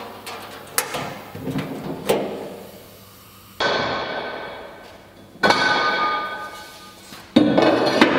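Galvanized steel machine parts being handled and set down: a few sharp clicks, then three loud metal clanks about two seconds apart, each ringing out.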